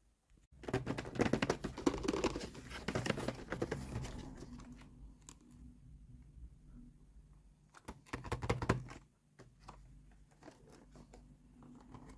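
Plastic toy packaging crinkling and tearing as it is unwrapped: a long run of dense crackling in the first few seconds, scattered light ticks, then a shorter burst about eight seconds in.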